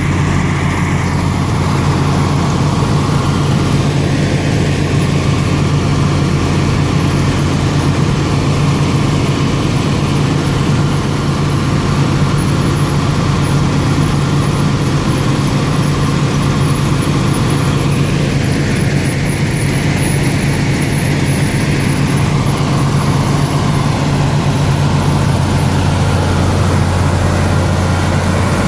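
Railway ballast cleaning machine at work, screening and washing the fouled track ballast: a loud, steady machine din over a constant low hum.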